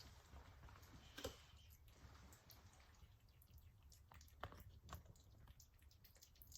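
Faint chewing of crunchy pet treats, with a few soft, crisp crunches scattered through it.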